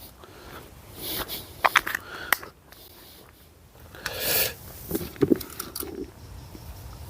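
Close handling noises from preparing a bait top-up for carp fishing: scraping and rustling with a few sharp clicks, and a short rushing noise about four seconds in.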